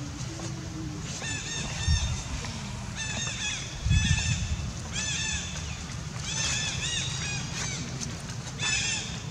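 Domestic fowl calling in runs of short, high, arched notes, a new run every second or so. A dull low thump comes about four seconds in.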